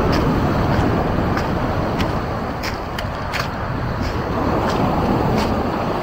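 Footsteps at a steady walking pace, a short crunch about every half second or so, over a steady low rushing background noise.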